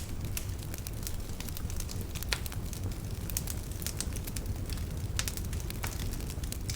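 Fire burning in a fireplace, crackling with irregular sharp pops over a steady low rumble. One pop about two seconds in stands out.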